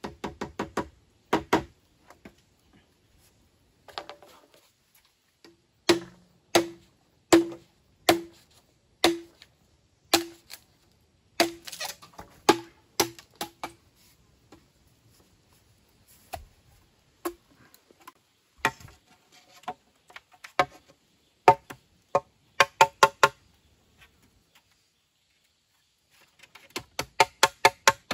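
Machete chopping and striking green bamboo poles: a series of sharp blows, many with a short hollow ringing knock, about one a second through the middle, then quicker runs of strikes near the end.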